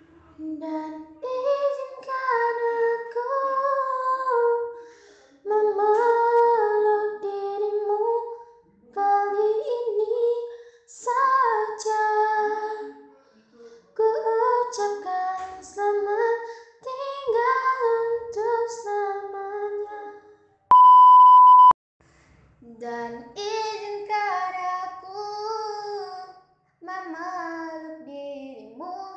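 A high-pitched voice singing a melody unaccompanied, in short phrases with brief pauses. About two-thirds of the way through, a steady beep lasting about a second breaks in, and then the singing carries on.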